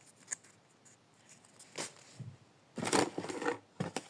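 Rustling and light clicks of small craft objects being handled, with a louder rustle about three seconds in.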